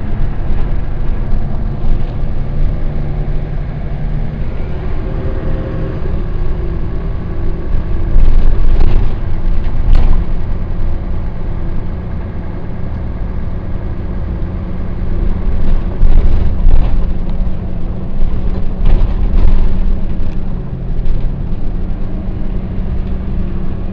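Volvo B10B bus's diesel engine running under way, with its engine cooling fan not running. Its pitch rises a few seconds in. Knocks and rattles come about a third of the way in, with a sharp click, and again later on.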